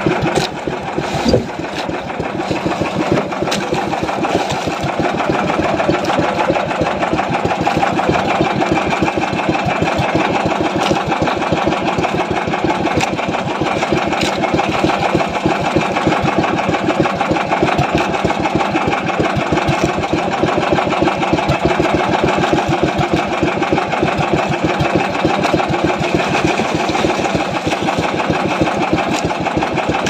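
Small boat engine running steadily at an even speed, with one short knock about a second in.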